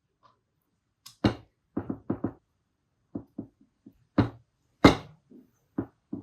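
About a dozen sharp, irregular knocks, metal and hard parts striking: the KTM 250SX swingarm's pivot bushings and cups being tapped into place.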